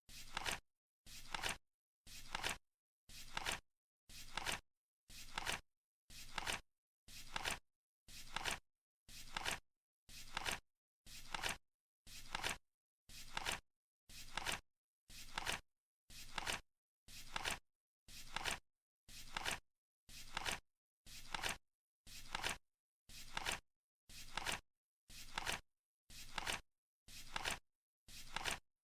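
Flip clock turning over a card once a second, each flip a short flap that builds and then cuts off sharply, repeating evenly.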